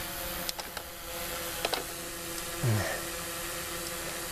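A few sharp clicks and taps as the clamps of a portable jump-starter pack are handled and fitted at a car battery, over a faint steady hum. Near the middle there is one short, low vocal sound falling in pitch.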